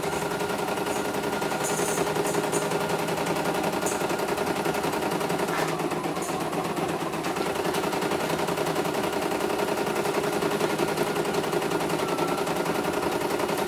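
CNY E900 computerized embroidery machine stitching a design: a rapid, even rattle of needle strokes over a steady motor hum.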